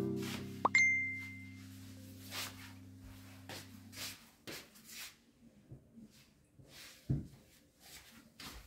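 The last notes of soft background music ring out and stop a few seconds in, with a single high ding about a second in. After that come faint rustling and handling sounds of clothes being picked up, and a soft thump near the end.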